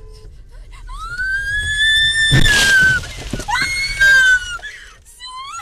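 A person in the car screaming: one long high cry that rises and holds for about two seconds, then two shorter screams. About two and a half seconds in, a loud crash cuts across it as the car ploughs off the snowy road into the snowbank.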